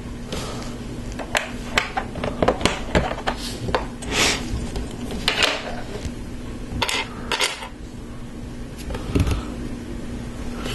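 LEGO Technic plastic parts being handled: irregular small clicks and clatters as friction pins are pressed into beams and pieces are set down on a tabletop.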